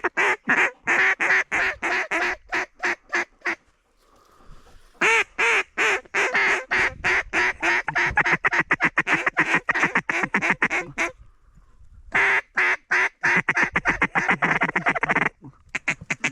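Duck call blown in long runs of quick, evenly spaced quacks, several a second. There are three sequences, with short pauses about four seconds in and about eleven seconds in.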